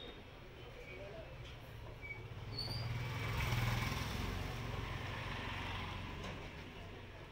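A motor vehicle passing: a low engine rumble that swells to its loudest about three and a half seconds in and then fades away.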